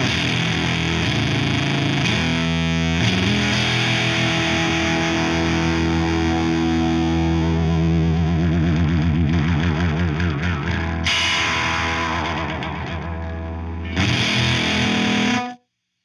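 Electric guitar played through a Veri-Tone Beehive pedal, heavily distorted, ringing out long sustained chords. The pitch wavers for a few seconds in the middle, the treble falls away for a moment and comes back, and then the sound cuts off abruptly near the end.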